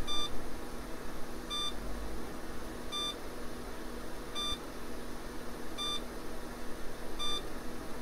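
80386 PC's internal speaker giving six short, identical beeps about one and a half seconds apart, over the machine's low steady hum. The beeps come with Windows 98 setup's repeating error: no extended memory and no XMS driver found, so setup cannot continue.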